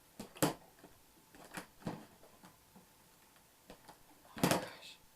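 Sticky fluffy slime being kneaded and pulled off the hands, giving a few sharp clicking pops, the loudest near the end.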